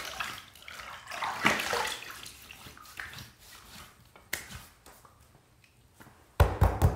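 Hands scooping water from a filled sink and splashing it onto a face and head, several handfuls with dripping between, growing sparser. Near the end, a quick cluster of loud thumps.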